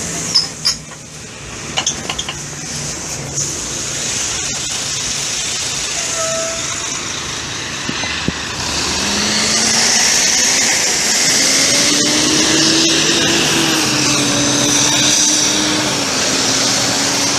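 City bus pulling away from the stop and driving past, its diesel engine rising in pitch as it gathers speed over steady road noise. A few sharp knocks of camera handling come in the first two seconds.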